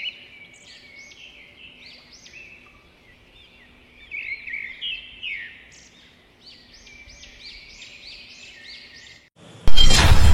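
Birds chirping in quick, repeated high notes, with a faint low hum underneath. Near the end a sudden loud hit cuts in as dramatic music starts.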